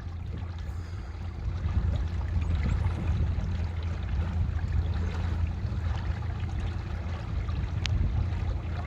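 Water splashing and gurgling around a small boat moving on a river, over a steady low rumble, with one sharp click near the end.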